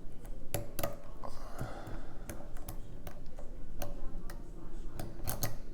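Lock pick clicking and tapping against the pins and keyway of a pin-tumbler challenge lock during single-pin picking: irregular sharp clicks, a dozen or more, sometimes in quick pairs.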